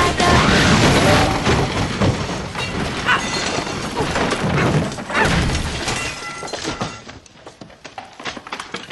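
A person tumbling down a wooden staircase: a long run of crashing, thudding impacts lasting about six seconds, then dying away.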